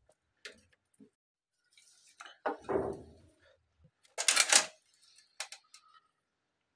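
Irregular clicks and scrapes of a soldering iron's metal tip working a hard plastic dryer-lid part while melting the plastic to mend a break, along with the part being handled. There is a longer scrape a little under three seconds in and the loudest clatter at about four seconds, with a few light ticks near the end.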